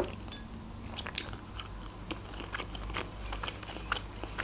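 Close-miked chewing with the mouth closed, a mouthful of soft dushpere dumplings: small wet clicks and smacks, one sharper click about a second in.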